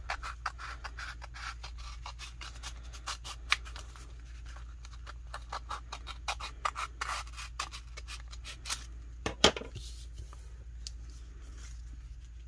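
Scissors snipping through a printed adhesive vinyl decal sheet: a quick run of small cuts and clicks, with a sharper click about nine seconds in, thinning out over the last couple of seconds as the sheet rustles in the hands.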